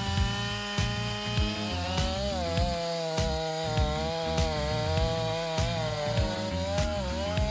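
Stihl MS 500i two-stroke chainsaw running at high revs while cutting a log, its pitch sagging and recovering as the chain loads in the wood. Background music with a steady beat plays underneath.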